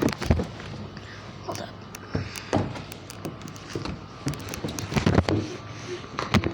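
Irregular knocks, taps and thumps, a few loud ones among many small ticks, over a steady background hiss.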